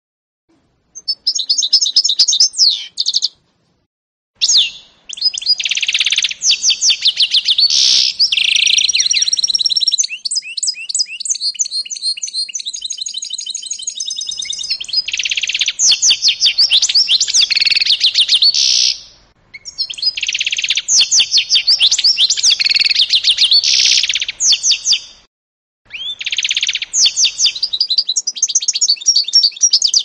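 Canary × goldfinch mule singing: long phrases of fast trills and rapidly repeated high notes, broken by a few short pauses.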